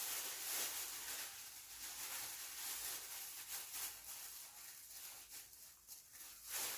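Close-miked eating of a bungeoppang, a crisp fish-shaped pastry: a steady crackly rustle that slowly fades toward the end.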